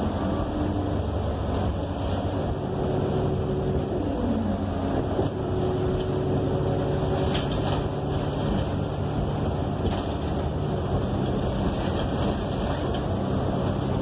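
Passenger-cabin noise of a 2015 New Flyer XN40 compressed-natural-gas city bus: its Cummins Westport L9N engine running steadily under road and body noise, with a short falling tone about four seconds in.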